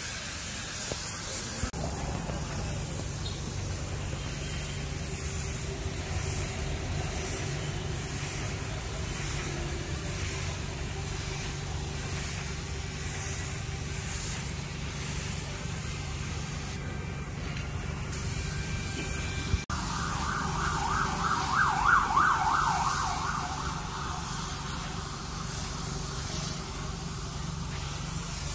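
Steady low mechanical hum of a running motor. About two-thirds of the way through, a click is followed by a louder, pulsing, wavering sound lasting about three seconds.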